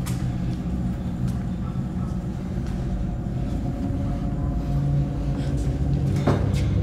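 Low, steady rumbling drone of a suspense film score, with faint held tones above it and a short soft hit near the end.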